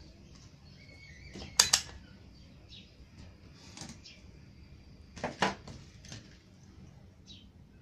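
Sharp clicks and knocks from handling things on an electronics workbench: a close pair about a second and a half in, the loudest, and another pair a little after five seconds, with a few faint short high chirps between.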